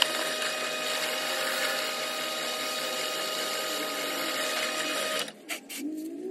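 Benchtop drill press running and boring holes in a metal knife blank: a steady motor whine over cutting noise that stops abruptly about five seconds in, followed by a few clicks.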